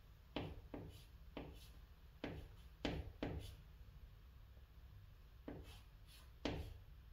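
Chalk writing on a chalkboard: a run of short, separate scratchy strokes as a Chinese character is written, with a quieter pause in the middle before two more strokes near the end.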